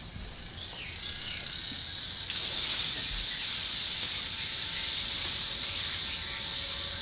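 K'nex roller coaster model running: the plastic train rolling along the track, a steady whirring hiss that picks up about a second in, with one sharp click a little after two seconds.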